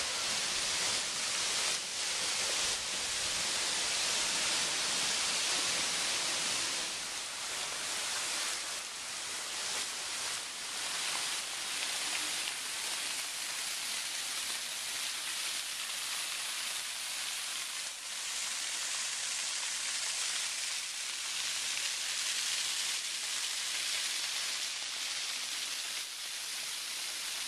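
Waterfall running: a steady rushing hiss of falling, splashing water, a little quieter from about seven seconds in.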